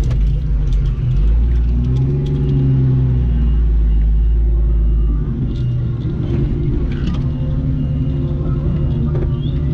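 Jeep Cherokee XJ engine running, heard from inside the cab as it creeps over dirt, a deep rumble that briefly rises and falls in pitch about two seconds in and eases off about halfway through.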